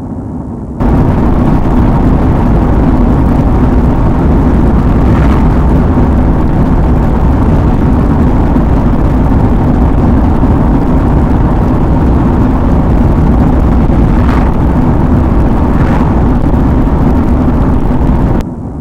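Loud, steady rumbling noise on a police dash-cam audio track, heaviest in the low end and overloading the microphone. It cuts in about a second in and drops out just before the end.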